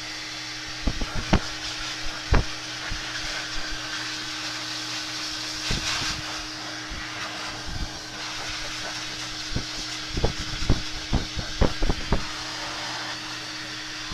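Handheld hair dryer blowing steadily with a constant hum, used to dry a wet puppy's coat. Scattered sharp knocks and clicks sound over it, several close together near the end.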